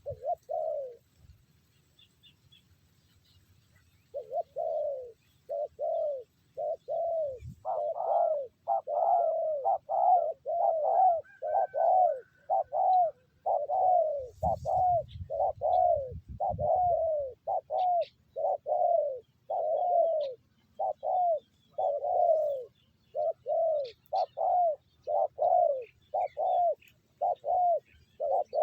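Spotted dove cooing: one coo, a pause of about three seconds, then a long, fast run of short, evenly spaced coos, roughly three every two seconds. A brief low rumble comes about halfway through.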